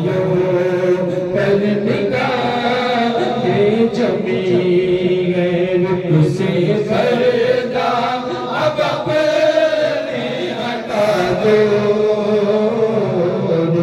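Several men's voices chanting a devotional hymn through microphones: a lead voice with long held, gliding notes, and others joining in.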